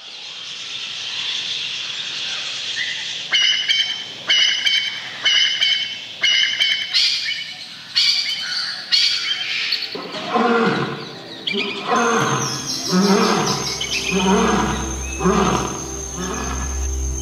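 Forest ambience fading in, then a bird's high call repeated about once a second. From about ten seconds in, a big cat's low calls follow, also about once a second, over a steady low drone.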